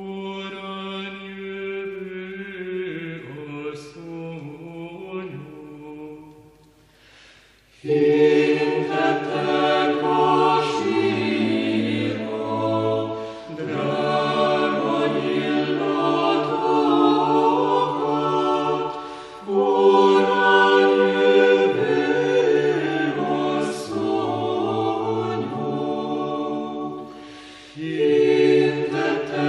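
Orthodox church choir singing liturgical chant a cappella in several voice parts. The first phrase is quieter; after a short pause about a quarter of the way in, the choir comes in much louder, singing in long phrases with brief breaks between them.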